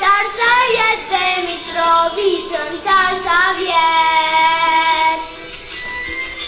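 A young girl singing solo into a microphone: long held notes with slides in pitch between them, growing quieter near the end.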